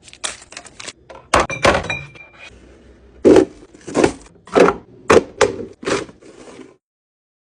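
Hard plastic fridge-organizer bins and the items in them being handled and set down: a few sharp knocks, then a run of short clunks about every half second, stopping abruptly near the end.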